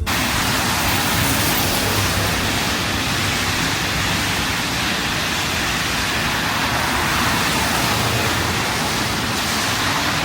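Steady, loud rushing noise, even from deep to very high, that cuts in sharply and cuts off abruptly.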